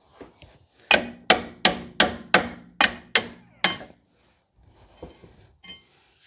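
Eight hammer blows, about three a second, on the rear brake caliper and bracket assembly, each with a short metallic ring, knocking it loose from the hub. Some faint scraping and handling follows.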